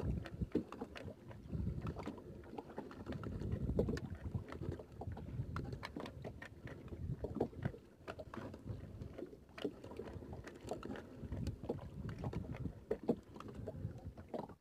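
A seine net being hauled by hand into a small boat: irregular knocks and taps of the net and rope against the boat over a low, uneven rumble of wind on the microphone.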